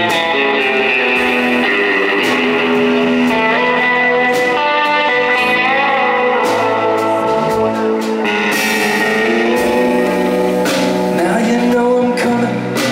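Live rock band playing loudly: an electric guitar through an amplifier leads, over bass and drums, with cymbals splashing from about eight seconds in. A man's singing voice comes in near the end.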